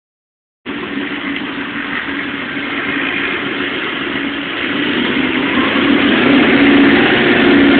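Toyota 1UZ-FE 4.0-litre quad-cam 32-valve V8 idling steadily, its idle controlled by a swapped-in LS1 engine computer, throttle body and idle air motor. The sound comes in just over half a second in and grows somewhat louder over the last few seconds.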